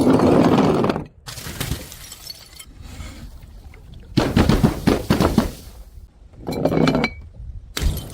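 Glass bottles smashing and shattering on stairs, several crashes in turn with shards clinking. The loudest crash comes at the start and another long one about four seconds in.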